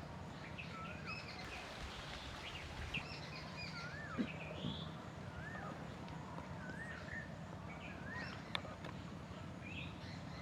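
Faint bird chirps: short rising-and-falling notes coming irregularly, about one a second, over a steady low background hum.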